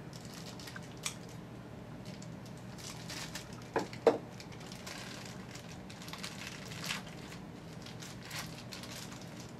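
Packaging rustling and crinkling as a Beyblade sticker sheet is taken out, with two sharp clicks about four seconds in.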